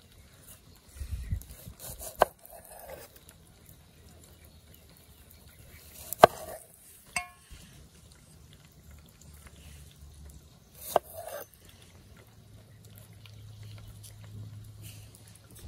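Three sharp, brief knocks about four seconds apart over quiet handling sounds; the second leaves a short ringing tone.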